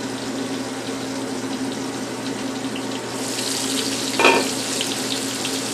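Onions sautéing in butter in a frying pan, sizzling steadily; about three seconds in the sizzle turns louder and crackly.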